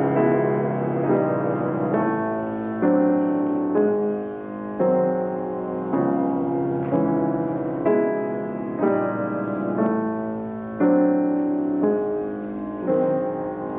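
Background piano music: slow, sustained chords with a new note or chord struck about once a second.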